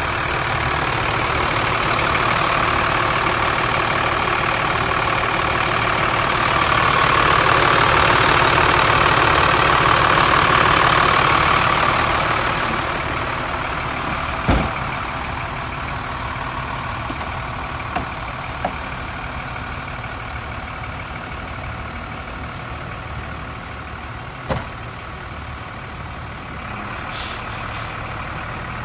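2004 Sterling Acterra dump truck's diesel engine running steadily at idle. It grows louder for several seconds, then settles back, with a few sharp knocks along the way and a short air hiss near the end.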